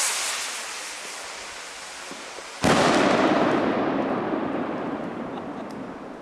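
A homemade firework rocket hissing as it climbs. About two and a half seconds in it bursts with a sudden loud bang that rumbles and fades away over several seconds.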